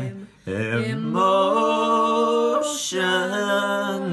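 A person singing or humming long held notes without words or accompaniment, the pitch sliding up into a steady note. There is a brief break just after the start and a short breathy hiss about two-thirds through.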